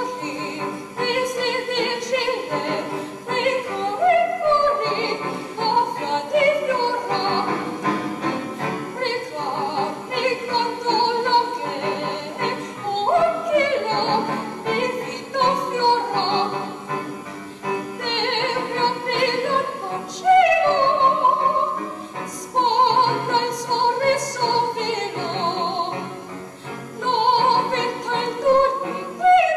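A young woman singing a classical art song in operatic style, her sustained notes wavering with vibrato, over piano accompaniment.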